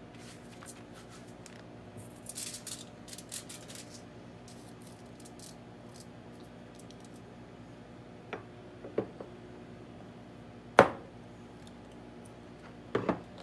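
Aluminium foil crinkling and tearing, then a few clicks and one loud sharp knock as a metal soft-plastic lure mould is handled and the foil is set into it to split the bait.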